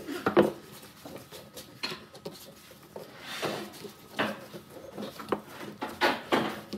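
Scattered clicks, knocks and short rustles of hands working steel pipe clamps around a clamped block of glued wood strips.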